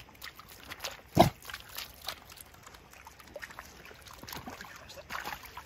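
Water splashing and dripping in rocky shallows as a pike is lifted out and dogs wade about, with scattered small knocks and one sharp thump about a second in.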